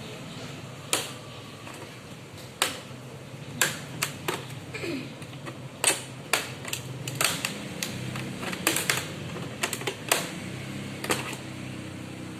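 About twenty sharp, irregular clicks and taps of hand tools and plastic and metal parts being handled as an HP all-in-one PC is taken apart.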